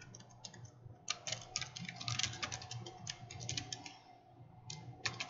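Typing on a computer keyboard: a few scattered keystrokes, then a quick run of keys for a few seconds, a short pause, and more keystrokes near the end.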